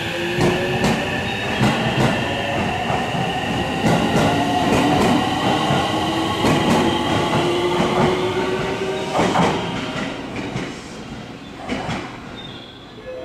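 Electric train pulling out of the platform: its motors whine in several tones that rise slowly in pitch as it gathers speed, and its wheels click over the rail joints. The sound falls away over the last few seconds as the last car passes.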